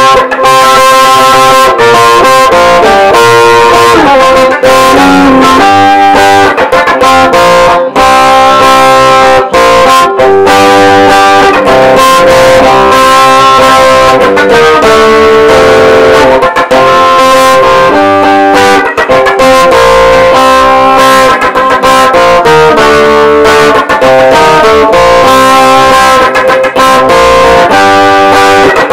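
Electric guitar playing a loud rock instrumental, with long held notes that change every second or two and short breaks between phrases.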